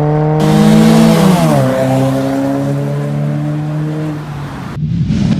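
Ford Focus engine heard through its aftermarket full exhaust while driving, a steady exhaust note with rushing wind noise from about half a second in. The pitch drops about a second and a half in and the note fades out, followed near the end by passing traffic.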